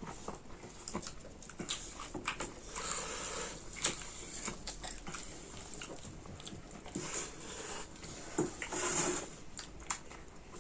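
Close-up eating sounds: chewing and crunching, with lip smacks and many short clicks.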